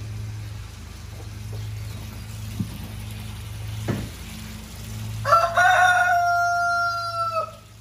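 A rooster crows once, a little over five seconds in: one long call held level that drops away at the end. A steady low hum runs underneath.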